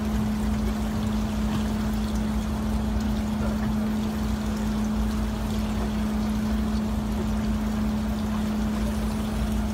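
A fishing boat's engine running with a steady, even hum, under a constant rush of water.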